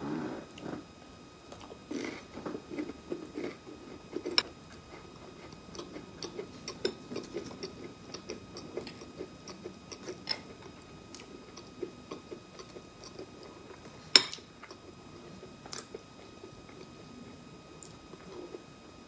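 Close-miked chewing of crisp water crackers and the clicks and soft scraping of a butter knife spreading guava jam on a cracker. One sharp clink, the loudest sound, about two-thirds through, as the knife is laid on the plate.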